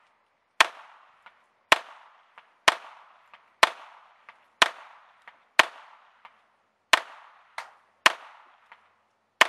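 Smith & Wesson 22A .22 LR semi-automatic pistol firing nine shots at an even pace of about one a second, with a fainter crack after each. The fully loaded magazine feeds and cycles every round with no failure to feed.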